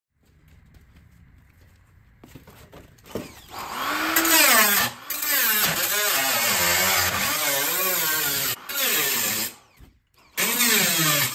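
Handheld grinder grinding rust off a pickup's steel wheel arch, throwing sparks. The motor's pitch dips and recovers repeatedly as the disc bears into the metal. It starts a few seconds in, cuts out briefly twice near the end and starts again.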